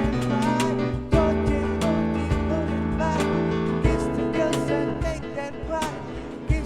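Live acoustic band playing an instrumental passage: acoustic guitar and a steady bass line with regular percussion hits, and a short melodic line weaving above them.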